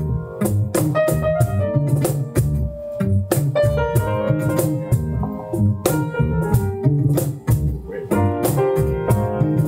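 A small live band plays an instrumental passage: acoustic guitar strumming, piano chords and electric bass over a steady percussion beat, with no voice.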